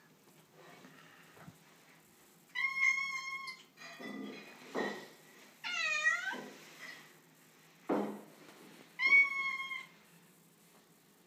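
Tortoiseshell cat meowing about four times: two level, drawn-out meows, a faint short one and one that falls in pitch. A few dull thumps come in between.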